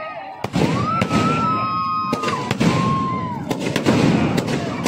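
Fireworks and firecrackers bursting at a Ravana effigy burning: repeated sharp bangs and crackles over a dense background din, with two held, shrill whistling tones in the first half.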